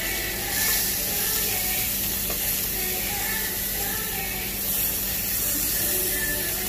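Thin slices of beef sizzling on a hot Korean barbecue grill plate as tongs lay them down. The sizzle swells about half a second in and again near five seconds, over faint background music.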